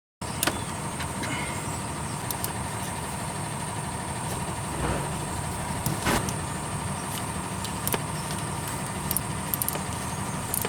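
Steady low mechanical hum with a few light clicks and a sharper knock about six seconds in.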